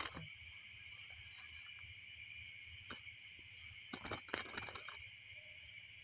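Steady, high chirring chorus of night insects, with a few brief clicks about three and four seconds in.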